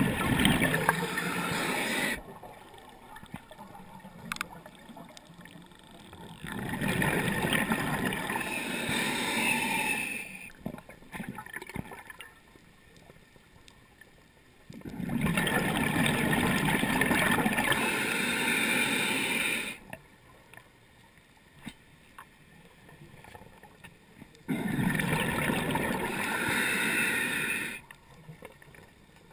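Scuba diver breathing through a regulator underwater. A rush of exhaled bubbles comes four times, about every nine seconds, with quieter stretches between breaths.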